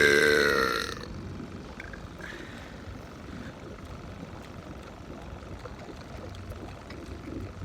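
A loud, drawn-out human burp whose pitch slides slightly down, ending about a second in. Then the steady low rumble of the motorboat running.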